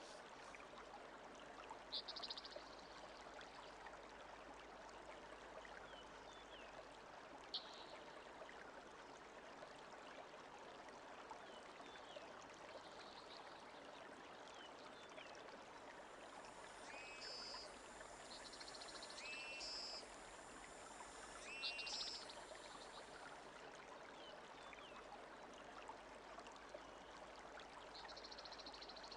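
Faint, steady flowing water of a stream. A few short high chirps come over it, most of them past the middle.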